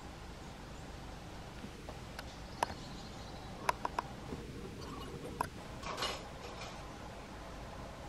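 A small songbird's short, sharp call notes: a handful of quick chips between about two and five and a half seconds in, with a faint falling high note among them, over light outdoor hiss. A brief louder rustling burst follows about six seconds in.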